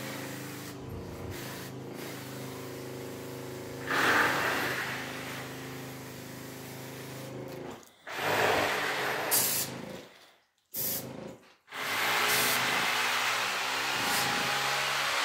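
Motor-driven chemical sprayer pump running steadily while the spray lance hisses as it injects termiticide into a drilled hole at the base of a wall. The spray swells louder about 4 s in and again from about 8 s. The machine stops for about two seconds just past the middle, then starts again.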